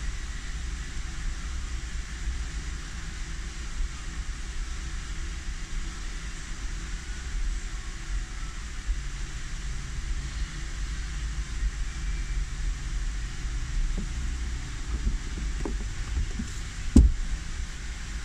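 Steady low rumble with an even hiss, typical of a car running close by, with a few light knocks and one sharper knock near the end.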